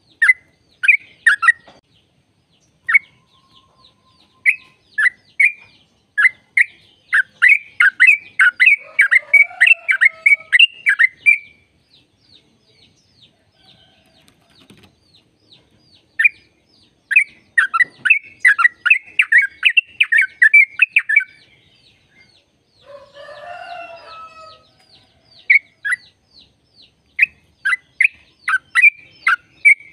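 Yellow-vented bulbul (trucukan) singing: runs of quick, bubbly, repeated notes, in two long rapid runs with fainter quick notes between them, and a short lower warbling call a little after two-thirds through.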